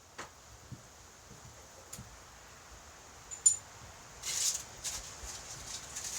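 A few faint clicks and knocks, then one sharp click with a brief high ring a little past the middle, followed by a short hiss.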